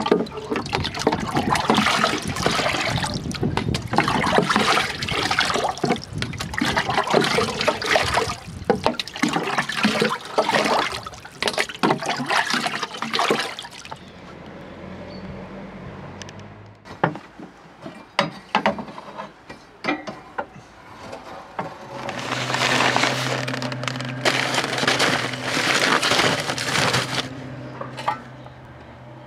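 Water splashing and pouring, as a bucket is filled and the water is poured through a funnel, in two long spells with scattered clicks and knocks in the quieter stretch between them.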